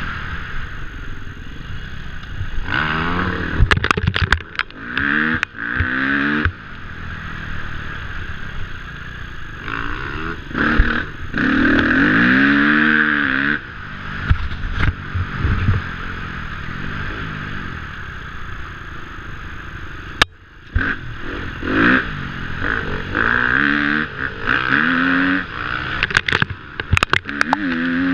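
KTM 250F dirt bike's single-cylinder four-stroke engine revving up and down again and again as it is ridden hard over rough ground, heard from a camera mounted on the bike. Knocks and clatter from the bike hitting bumps cut in throughout.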